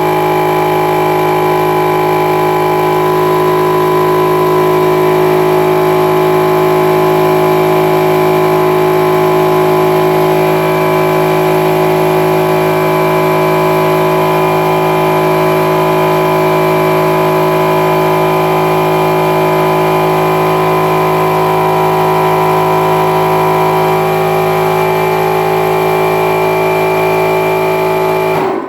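Central Pneumatic 6-gallon oilless air compressor running loud and steady on its first start-up, pumping up its empty tank, then shutting off right at the end.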